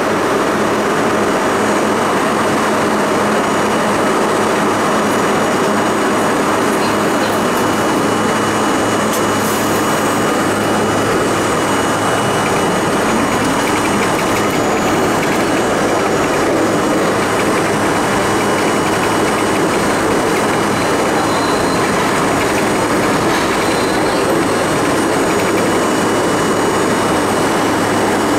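Budd-built R32 subway car running out along the station platform and into the tunnel. Its traction motors and steel wheels on the rails make a steady, even running noise.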